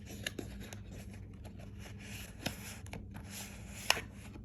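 Small cardboard product box being opened and handled: light rustling and scraping of the packaging with a few sharp taps, the sharpest near the end.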